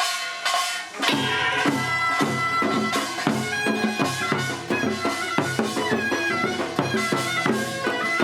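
Lively music with a steady beat and held melody notes starts up about a second in, played for the newlyweds' recessional march.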